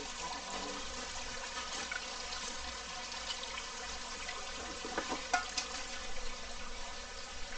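Steadily running water, with a few small knocks about five seconds in.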